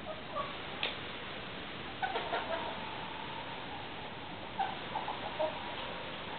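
Chickens clucking in short calls, bunched in two clusters about two seconds in and a second before the end, over a steady hiss. A sharp click comes just before one second in.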